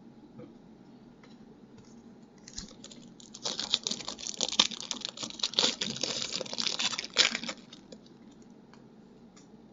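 Foil trading-card pack wrapper crinkling and crackling as it is torn open, dense and rapid for about five seconds and then stopping.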